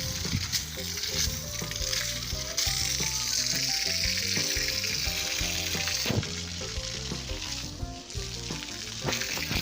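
Continuous hiss, with a tune of short stepping notes underneath.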